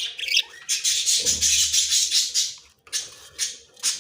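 Budgerigars chattering and squawking: about two seconds of dense, high, scratchy calling, then a few shorter calls near the end.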